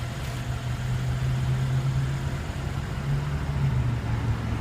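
Car engine idling, a steady low hum that rises slightly about three seconds in and then settles back.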